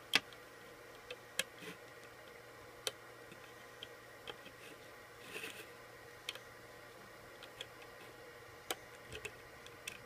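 Light, irregular clicks and ticks of a plastic hook knocking against the plastic pegs of a rubber-band loom as bands are lifted over the pegs, the sharpest right at the start, with a brief soft rustle about halfway through.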